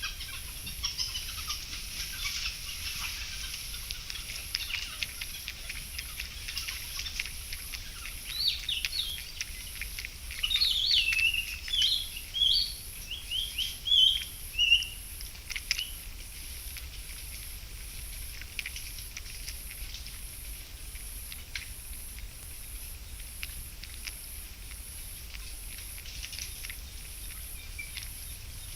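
Birds calling outdoors: a run of short, quick chirps from about eight to sixteen seconds in, loudest near the middle, over a steady high background hiss of insects. A faint high pulse repeats about once a second throughout.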